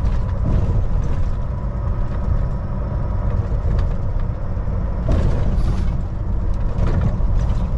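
Steady low engine and road rumble inside the cab of a Volvo VNL semi truck driving along, with two brief louder noises about five and seven seconds in.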